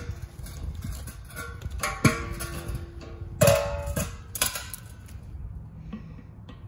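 Empty stainless-steel beer keg clanking and ringing as it is laid on concrete and a tool is fitted onto its valve: sharp metallic strikes at the start, about 2 s in and about 3.5 s in, the last two ringing on. Short hisses of gas escaping as the valve is pressed to depressurise the keg.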